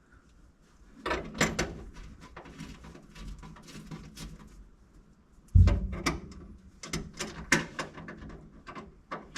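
Clicks, clunks and rattles of seatbelt hardware being handled and fitted, with one heavy thump about halfway through.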